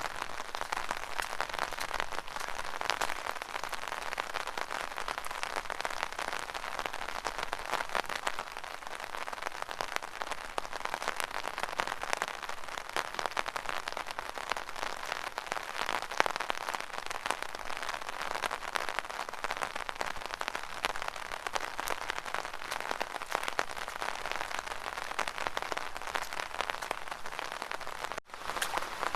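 Rainwater in a rain gutter, a steady dense patter of many small drips and splashes. It breaks off for an instant near the end.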